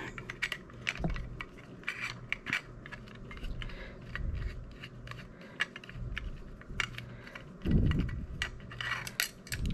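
Small screwdriver unscrewing a gold standoff that holds a Raspberry Pi 4 board in a metal case: a run of light metallic clicks and scrapes. Louder handling of the case comes about eight seconds in and again near the end.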